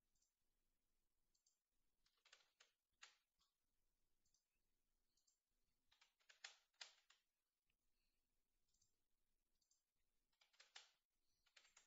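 Faint clicking of a computer mouse and keyboard, in three short clusters of clicks about two seconds in, about six seconds in, and near the end.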